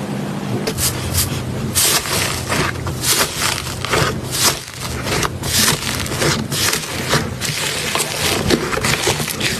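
Slime being squeezed and worked by hand, making a dense, irregular crackling with sharper pops every fraction of a second.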